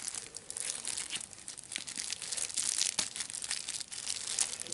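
Plastic wrapping crinkling and rustling in the hands, a dense run of irregular crackles as a packaged monocular is handled inside its cloth drawstring pouch.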